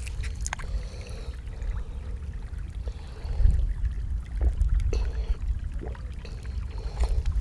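A plastic water bottle is twisted open with a sharp click, then someone drinks from it, with scattered small clicks of plastic and swallowing, over a steady low rumble.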